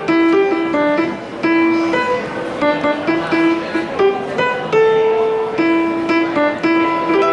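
Piano played as a street piano: a melody of short, separately struck notes over chords, with a few held notes.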